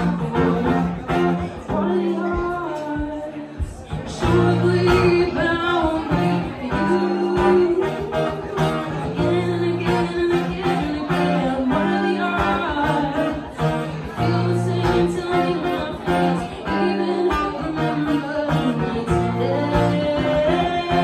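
A woman singing live into a microphone, with acoustic guitar accompaniment.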